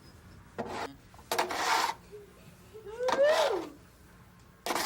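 A snow shovel scraping and shifting snow in several separate strokes. About three seconds in there is a short gliding vocal sound that rises then falls.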